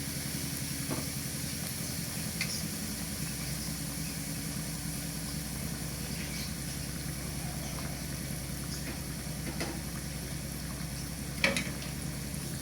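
Flour-coated chopped red chillies and kaffir lime leaves sizzling steadily as they fry in hot oil, with a few light knocks, the clearest about eleven and a half seconds in.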